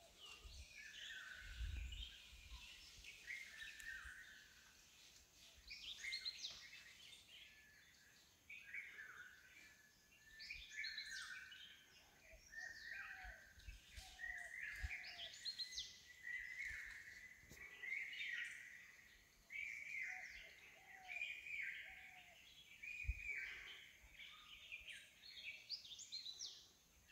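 Faint birdsong: several birds calling and chirping on and off in short, repeated phrases, with a couple of low thumps.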